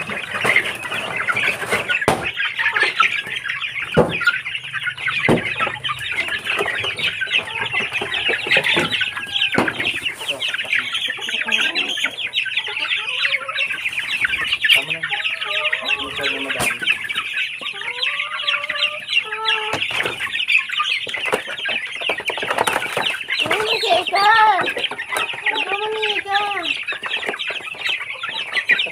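A flock of Barred Plymouth Rock chickens feeding: many chicks peeping continuously in a high chorus, with the adult hens clucking and calling over it, most clearly in a run of calls about two-thirds of the way through.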